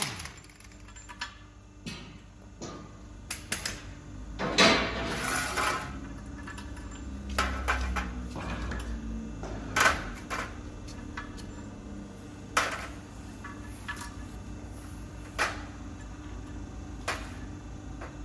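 Scattered metallic knocks and clicks of tools and parts being handled during heavy-equipment tyre work, with a louder noisy burst lasting about a second a few seconds in.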